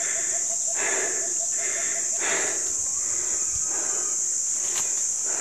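Steady high-pitched drone of forest insects, with a faster pulsing call over it for the first two seconds or so. Footsteps rustle and crunch through dry leaf litter and undergrowth on a steep trail.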